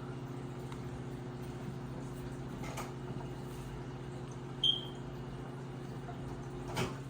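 Steady low electrical hum, with a faint click about three seconds in and another near the end, and one short high squeak a little past the middle.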